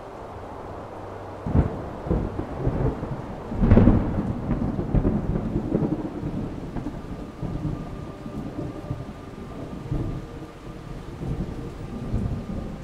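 Thunder with rain: a sharp crack about a second and a half in, a louder clap about two seconds later, then a long low rumble that rises and falls over a steady rain hiss.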